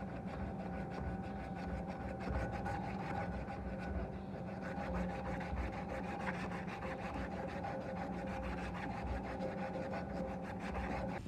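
A strip of sandpaper pulled rapidly back and forth around a wooden knife handle, shoeshine style: a fast, continuous rubbing of abrasive on wood. It cuts off suddenly at the end.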